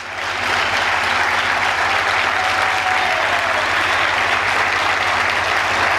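Audience applauding steadily, swelling up right at the start and holding at a constant level.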